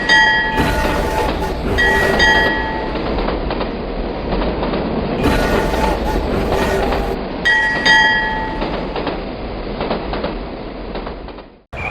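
Train running along the track with a steady rumble. Its multi-tone horn sounds three short blasts: at the start, about two seconds in, and about seven and a half seconds in. The sound cuts off abruptly near the end.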